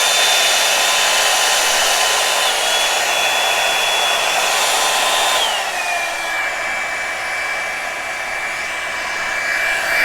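Revlon One Step hair dryer brush running, a steady rush of blown air with a high motor whine. About five and a half seconds in the whine drops in pitch and the sound gets slightly quieter.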